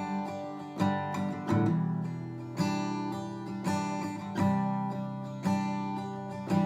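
Solo acoustic guitar strumming chords in a steady country rhythm, with an accented strum about once a second and the chords ringing between strokes.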